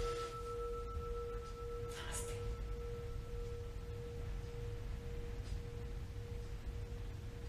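Metal singing bowl ringing on after a strike, a steady low tone with a slight waver sustained throughout. A higher overtone dies away about four seconds in, and a soft rustle comes about two seconds in.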